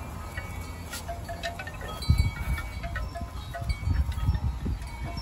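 Puppies scuffling and tugging over a chewed glove on concrete, with a run of low bumps and rustling from about two seconds in. Light tinkling tones ring on and off throughout.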